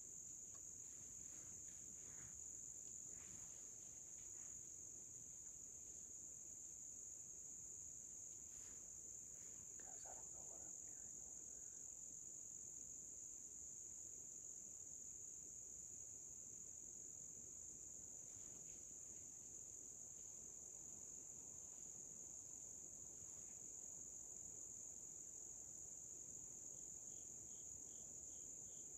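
Crickets trilling in a steady, unbroken high-pitched chorus over faint background hiss. Near the end a faint run of short, quick chirps comes in.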